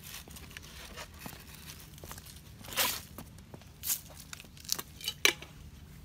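Rustling and crinkling handling noises with scattered small clicks, and a few short, louder rasps about halfway through and again near the end.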